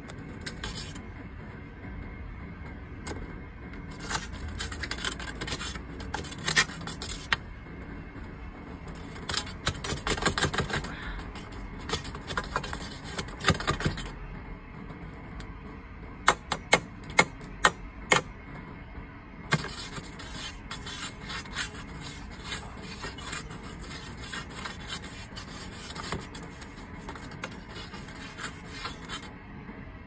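A metal pole scraping and chipping ice out of the ends of frozen PVC furnace exhaust and intake pipes that are clogged with ice, in bursts of rasping. A quick run of sharp knocks comes a little past the middle, then a long stretch of steady scraping.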